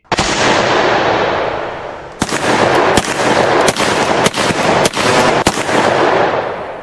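Sound-effect bangs like gunshots for the title letters. One hit at the start has a long echoing tail. Six sharper shots follow, about two-thirds of a second apart, in the second half.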